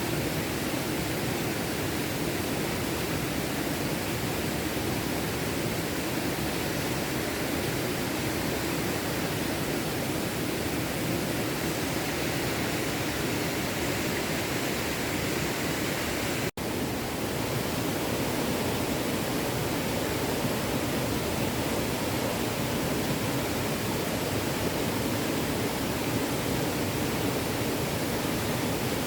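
Small stream running steadily, a continuous rush of flowing water. It cuts out for an instant a little past halfway, then carries on unchanged.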